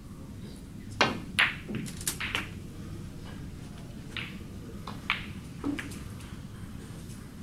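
A snooker shot: the cue tip clicks on the cue ball about a second in, and the cue ball cracks sharply into a red a moment later, the loudest sound here. The red drops into the pocket with a few duller knocks, and several softer clicks follow as the cue ball comes off the cushions and runs round the table.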